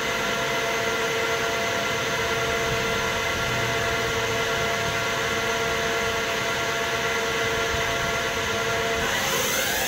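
Doosan DNM400 vertical machining center's high-torque spindle running at 1,000 RPM with a steady hum of several tones. Near the end it speeds up toward 4,000 RPM and the pitch rises.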